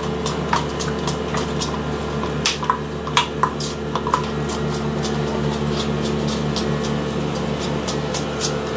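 A metal spoon clinking and scraping against a stainless steel bowl while thick hung curd is mixed, the clinks coming in a quick irregular series over the first few seconds and then thinning out. A steady low hum runs underneath.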